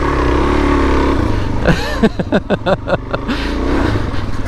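Suzuki DR-Z400S single-cylinder four-stroke engine running on a muddy trail. Through the middle it revs up and down unevenly, with a few sharp knocks, then settles to a steady run.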